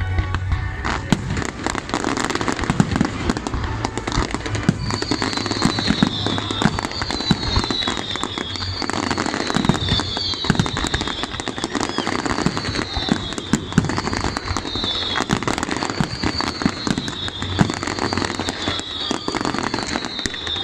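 Fireworks display: a dense, continuous barrage of shell bursts, bangs and crackling. From about five seconds in, a short falling high whistle repeats roughly once a second over the bangs.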